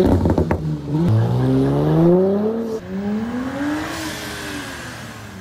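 2019 Audi S4's turbocharged 3.0-litre V6 through a custom exhaust: a rev that ends in a burst of sharp crackles, then the car accelerating hard, its pitch rising, dropping at a gear change about three seconds in, and rising again as it fades into the distance.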